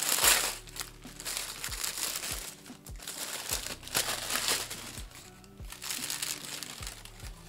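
White tissue paper crinkling and rustling in repeated bursts as it is pulled and torn away from a quilted leather handbag, loudest just after the start.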